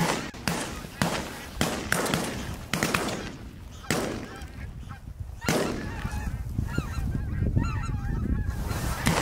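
Geese honking overhead in a series of short, harsh calls, repeated irregularly about once or twice a second.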